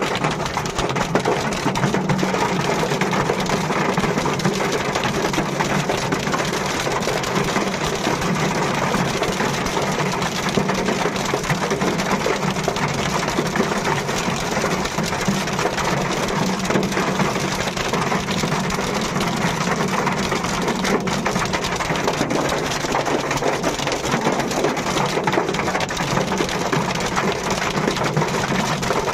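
Heavy rain falling steadily, a dense, unbroken patter of drops striking surfaces.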